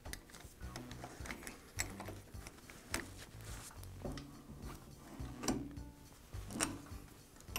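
Irregular clicks and light metal knocks from a Jet drill press's quill return coil spring and its housing being turned counterclockwise by gloved hands to wind tension into the spring.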